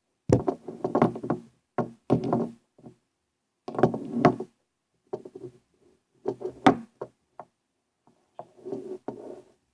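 Pepper shaker being shaken and knocked, in short bursts of knocking and tapping with brief pauses between.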